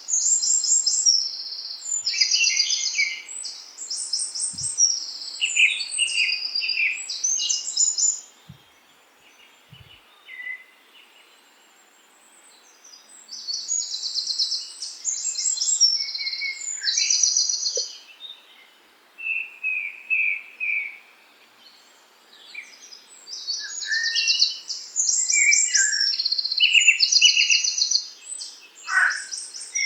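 Songbirds singing: rapid, high-pitched trilled phrases and chirps in overlapping bursts, falling quiet for a few seconds about a third of the way in and again past the middle.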